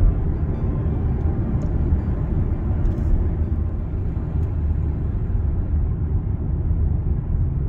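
Steady low rumble of a running vehicle.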